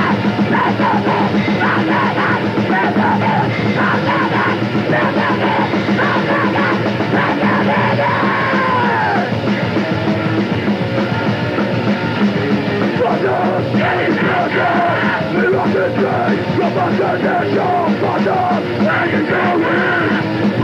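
Fast, loud grindcore/hardcore punk band recording with heavily distorted guitars, drums and yelled vocals, dense and continuous without a break, with the muffled top of an old tape transfer.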